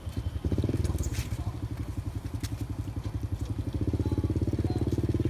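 A small engine running at idle, with a fast, even pulsing beat that comes in suddenly and grows a little louder about four seconds in. A few sharp clicks sound in the first second or so.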